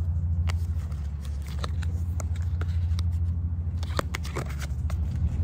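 Tarot cards being moved and slid within a fanned hand, giving light, scattered clicks and snaps, over a steady low rumble.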